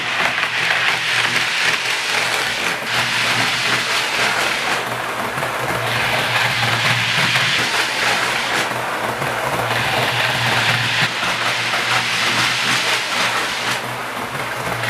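Model trains running on the layout's track: a steady motor whirr and wheel noise that swells and fades several times as trains pass.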